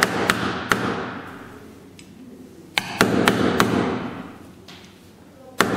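Small hammer tapping a steel pin into a tight-fitting hole in a metal airgun body. The taps come in short runs: a couple at the start, about four in quick succession about three seconds in, and one more near the end.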